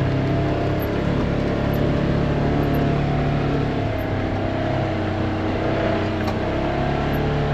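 Vehicle engine running steadily while driving slowly over rough ranch trails, a constant low hum with no change in speed.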